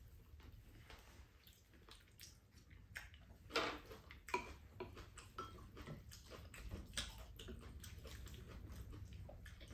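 Spoons and chopsticks clicking and scraping against ceramic rice bowls while two people eat, in scattered small knocks, with the loudest clinks about three and a half and four and a half seconds in.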